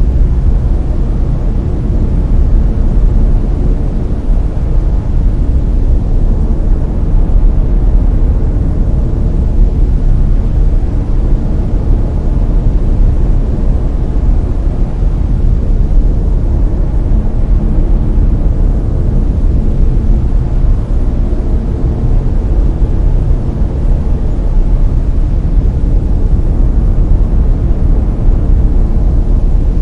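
Brown noise: a steady, deep rushing hiss, strongest in the bass and thinning out toward the highs.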